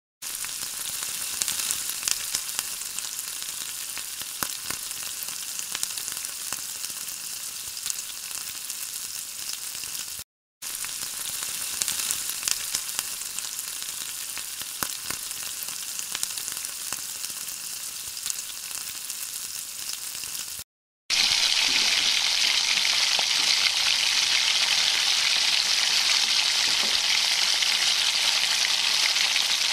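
Oil frying in a metal pan, with sliced onions sizzling and frequent sharp pops. After abrupt cuts about 10 and 21 seconds in, the sizzle turns louder and steadier as onions in spice paste are stirred with a spatula.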